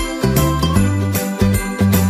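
Instrumental music with jingle bells ringing along, held pitched notes changing every fraction of a second.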